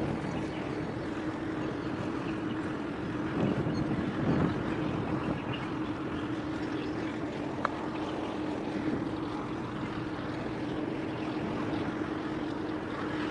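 Steady drone of a large cargo ship's engines carried across the harbour water, with a constant low hum at one pitch and a couple of brief louder bumps about four seconds in.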